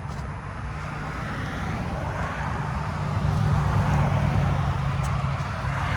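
A car passing on the road, its tyre and engine noise swelling steadily and loudest a little after halfway through.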